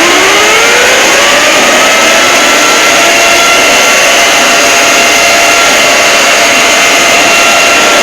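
Heavily distorted, clipped fan-made emergency alert alarm: a dense roaring noise with several tones that slide in pitch in the first couple of seconds, then settle into steady held tones.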